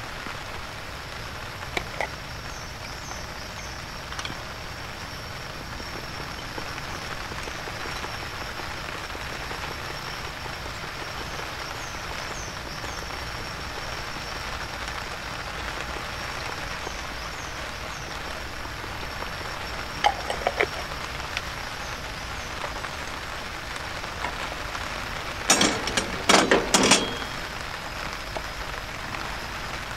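Steady hiss of heavy rain, with a faint high chirping in the background. Near the end comes a quick run of loud metal clatter as kitchen tongs and a plate are handled at the camp stove.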